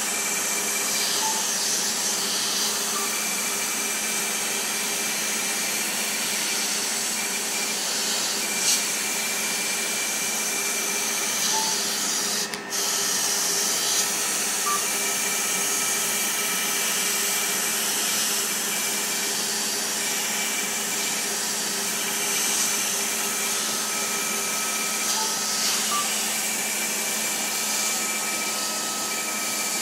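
Fraxel skin-resurfacing laser running during treatment: a steady airy rush with a low hum, and a high thin tone that cuts in and out every few seconds as the handpiece is worked. A few short beeps sound along the way, and there is a brief click about twelve seconds in.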